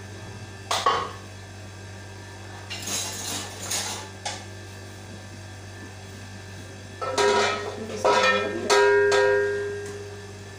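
Metal spoon and cookware clanking: a click early on, then several knocks about seven to nine seconds in that ring on with clear tones as they fade, over a steady electrical hum.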